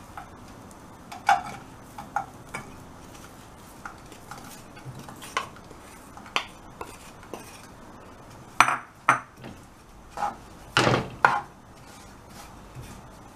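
Wooden spatula knocking and scraping crushed jaggery off a ceramic plate into a pan, then stirring it in the pan: irregular clinks and knocks, the loudest strikes in the second half.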